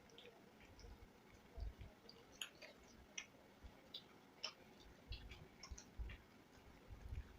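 Faint, scattered clicks and soft low thuds of people eating: mouth sounds and chewing, and food being handled on plates.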